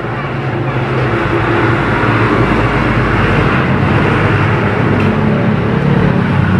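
Loud steady rumbling noise with a low hum beneath it, swelling a little about a second in.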